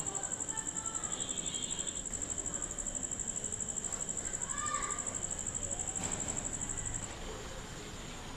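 An insect, likely a cricket, trilling: a high-pitched chirp pulsing fast and evenly, turning steadier and softer about seven seconds in.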